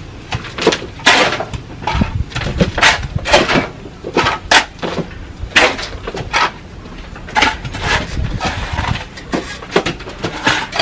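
Shovels and hoes chopping and scraping into soil, several people digging by hand at once: irregular sharp strikes, a few a second.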